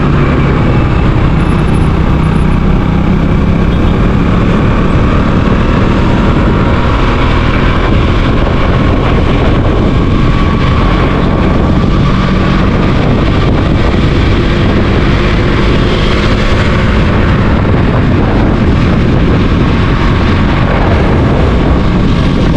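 Motorcycle engine and road noise while riding at a steady speed, loud and unbroken.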